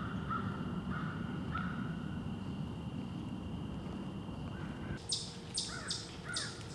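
Wild birds calling in woodland. First comes a run of short, harsh calls about twice a second. Then, after a cut about five seconds in, comes a rapid series of high, scratchy calls mixed with short chirps.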